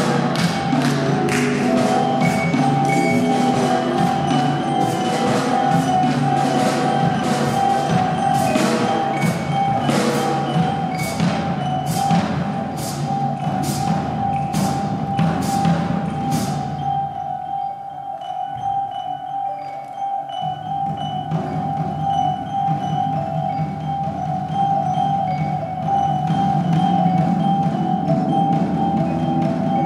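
Improvised ensemble music: a held drone tone under sharp percussion strikes, about two a second, which stop about 17 seconds in, leaving sustained tones with soft, short high notes.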